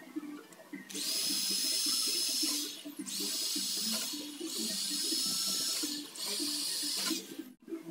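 Corded electric hand drill boring into galvanized hollow steel tube in repeated bursts of a couple of seconds, the motor whine rising each time it spins up.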